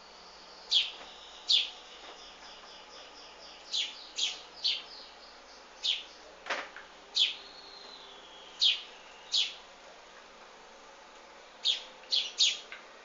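Small wild birds chirping: about a dozen short, sharp chirps at irregular intervals, each sweeping down in pitch, with one longer falling whistle about eight seconds in.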